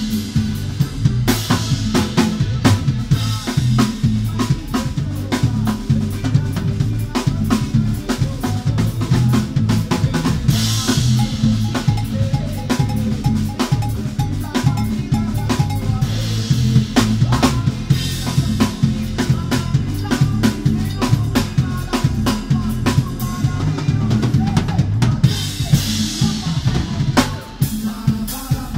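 Live band music with the drum kit to the fore: a busy beat of kick drum, snare and rimshots, with a brighter wash over the top every several seconds.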